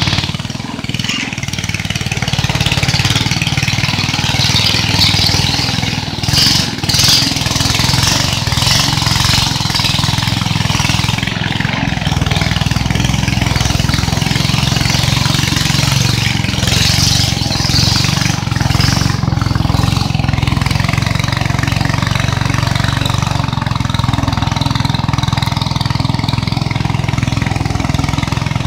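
Motor of a river longboat running steadily while underway, a constant low hum, with a hiss of water rushing past the hull.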